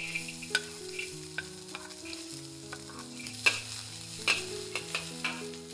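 Onion and ham stir-frying in a pan with a light sizzle, turned with a spatula that scrapes and knocks against the pan a few times, the loudest knock a little past the middle.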